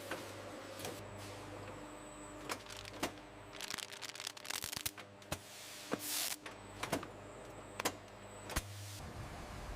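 Production-line machinery running with a steady hum, broken by irregular sharp clicks, knocks and short whooshing passes.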